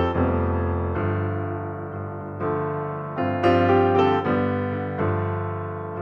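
Background piano music: slow, soft piano chords and notes, each struck and left to fade.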